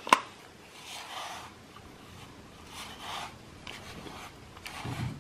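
A hand brush drawn through a cat's fur: a few soft swishing strokes. A sharp click comes right at the start.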